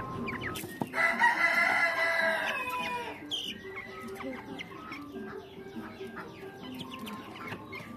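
A rooster crows once, a loud call of about two seconds starting about a second in and falling at its end. Chickens cluck and chirp around it.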